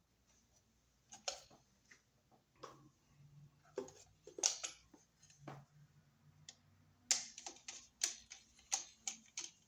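Irregular light clicks, taps and scrapes of a screwdriver and copper wire working at a wall receptacle's terminal screw, as the black wire is set under the screw and tightened. The clicks come more thickly over the last few seconds.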